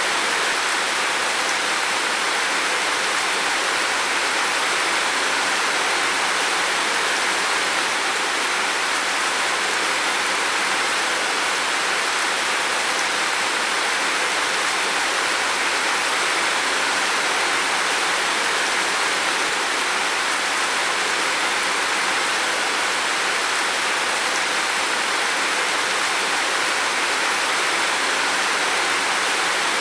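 Heavy rain falling steadily on a roof: a dense, even hiss with no separate drops standing out.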